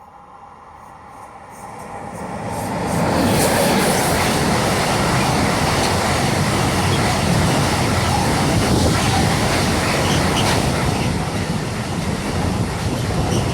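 A train passing close by: its noise swells over the first three seconds, then holds as a loud, steady rumble of wheels on rails with scattered clicks.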